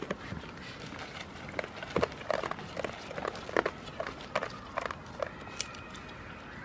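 Goats' hooves clattering in irregular sharp knocks, a few a second, as the goats move about on a hard surface.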